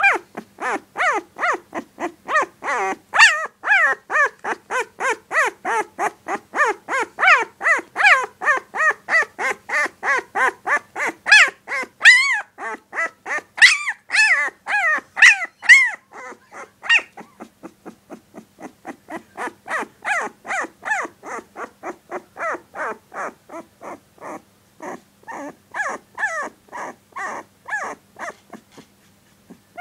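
A 16-day-old puppy giving a long unbroken string of short yips and little growls, about three a second, louder in the first half and softer from about halfway on.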